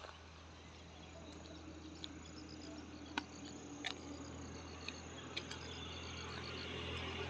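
Insects chirping in quick trains of short, high-pitched pulses, with a few sharp clicks and a low steady hum that grows slightly louder near the end.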